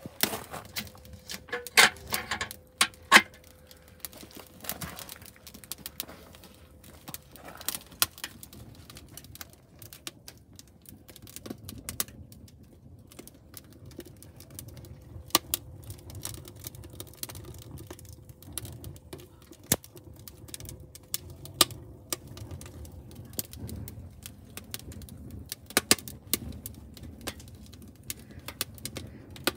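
Beech wood fire crackling in a metal bucket: irregular sharp pops and snaps throughout, with a few louder knocks in the first few seconds.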